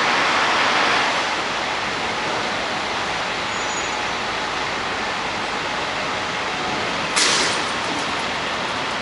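Steady rushing noise of an LIRR M-7 electric commuter train rolling away from the platform, mixed with street traffic, dropping a little about a second in. About seven seconds in comes one brief, sharp hiss.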